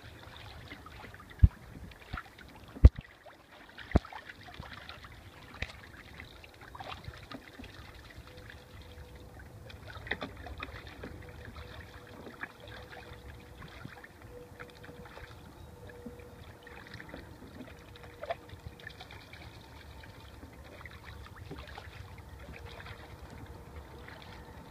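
Two ducks bathing in a plastic tub of water, splashing and sloshing irregularly with small drips and flicks of water. There are three sharp knocks in the first four seconds.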